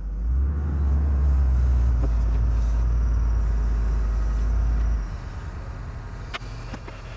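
A heavy engine running steadily with a low rumble, dropping in level about five seconds in. A couple of sharp clicks near the end.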